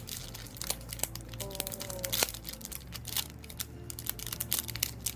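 A crinkly snack wrapper being torn open and unwrapped by hand, with irregular crackles and rustles throughout.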